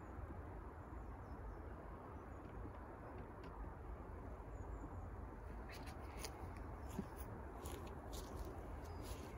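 Quiet outdoor background: a steady low rumble, with a few faint, short high clicks scattered through the second half.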